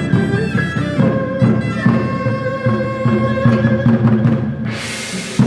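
Chinese traditional ensemble playing: pipa and other strings and winds over Chinese drums, with steady drum strokes, ending on a strong final drum stroke. Applause and cheering break out about a second before the end.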